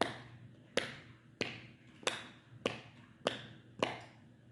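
Pop-it fidget toy bubbles being pressed through one after another from the other side, seven sharp pops at a steady pace of a little under two a second.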